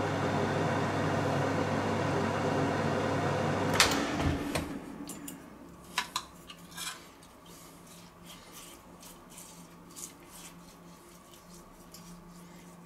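Hot-air fryer oven's fan running with a steady hum, cut off by a click about four seconds in as the door is opened. After that, faint scattered taps and clinks of a basting brush against a small glass jug and the chicken on the rotisserie spit.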